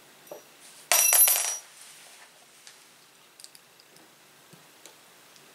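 Small steel screws dropped together, giving one brief jingling clink with a ringing metallic tone about a second in. A few faint clicks follow.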